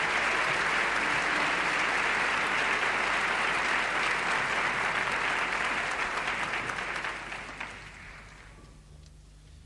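Theatre audience applauding, a dense patter of clapping that dies away about eight seconds in.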